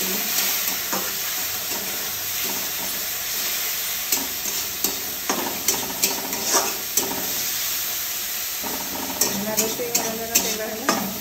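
Food sizzling as it fries in a pan while a spatula stirs it, with runs of sharp scraping clicks of the spatula against the pan from about four seconds in and again near the end.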